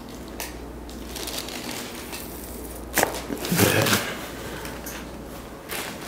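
Chiropractic neck adjustment: a single sharp crack from the cervical joints about three seconds in, followed by a brief louder noise.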